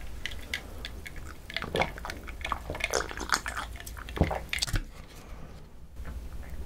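A person drinking a dark fizzy soft drink from a glass close to the microphones: sips and swallowing among wet mouth clicks and small handling knocks, with one louder gulp about four seconds in.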